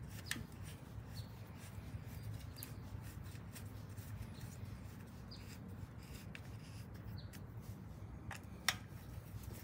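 Faint clicks and light scrapes of a screwdriver and hands on a motorcycle air-cleaner cover as its bolts are fitted, with one sharper click near the end, over a low steady hum.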